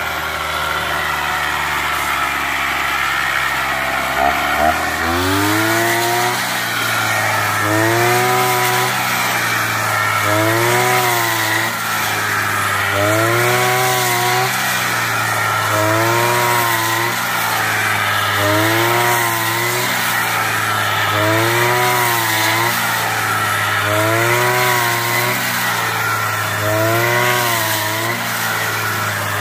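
Petrol brush cutter engine with a homemade rice-cutting attachment, running steadily, then picking up speed about five seconds in. From then on its pitch rises and falls in a regular cycle about every three seconds as the blade swings through the rice stalks.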